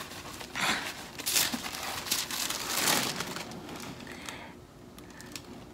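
Tissue paper crinkling and rustling as a shoe is pulled out of its wrapping, in several bursts that die away near the end.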